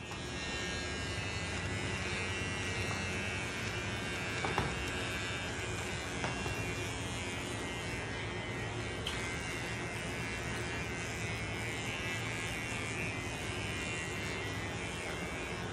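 Small electric motor buzzing steadily, with two light knocks about four and a half and six seconds in.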